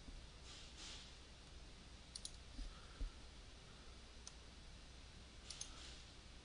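Faint computer mouse clicks over a quiet hiss: a pair about two seconds in, a louder single click about three seconds in, and a few more near the end.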